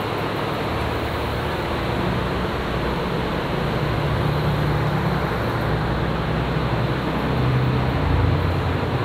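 Steady rushing background noise with a low hum that swells a little around the middle and again near the end.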